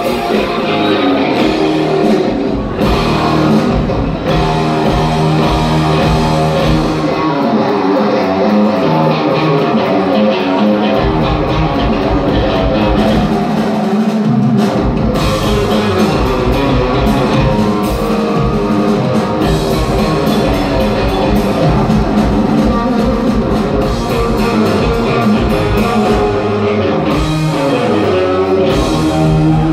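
Live rock band playing: electric guitars, bass, keyboard and drum kit. The deepest bass thins out for a few seconds about a third of the way in and again briefly near the middle.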